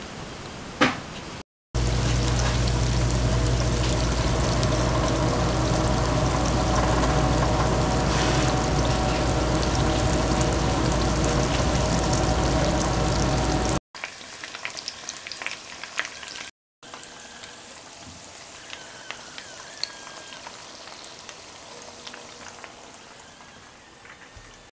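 Chapssal doughnut balls of glutinous rice dough frying in hot oil: a loud, steady sizzle over a low hum. After a cut it drops to a quieter stretch with scattered clicks and taps.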